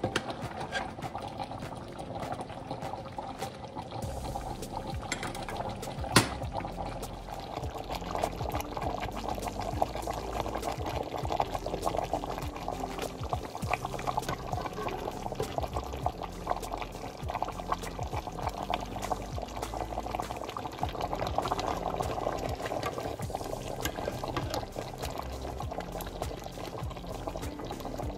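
Thick braising sauce bubbling at a simmer in a pot, with a ladle pouring sauce back over the pork hock. A single sharp knock about six seconds in.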